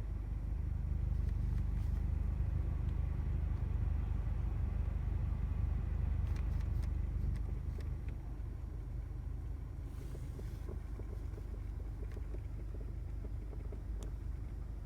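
Air conditioner running with an abnormal low drone and rumble, the unusual noise that appears when the AC is switched on. It eases slightly about eight seconds in, and a few faint clicks sound over it.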